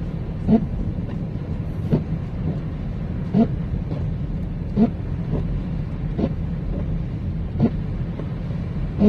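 Car cabin road rumble while driving, with windshield wipers sweeping: a short rising squeak about every second and a half as the blades change direction.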